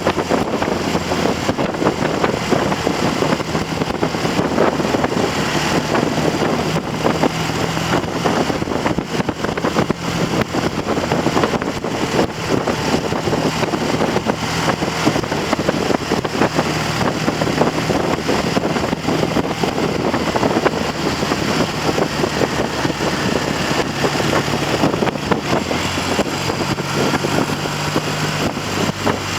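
Triumph TR6 650 cc parallel-twin motorcycle engine running on the road at light throttle in the mid revs, its note shifting up and down, nearly buried under heavy wind noise on the microphone. The engine is being run in after a top-end rebuild with new pistons and rings.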